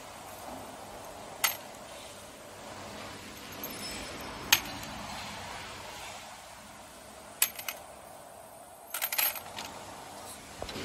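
Scattered sharp metallic clinks of steel construction nails striking metal, five or six of them at irregular moments with a short cluster near the end, over a steady workshop hiss.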